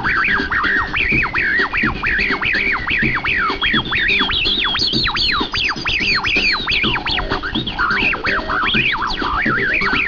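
Squelchy acid-style electronic sounds from a portable AM radio tuned to pick up a small ferrite-coil exciter circuit, mixed with an acid house track. Quick falling sweeps, several a second, run over a steady low pulse.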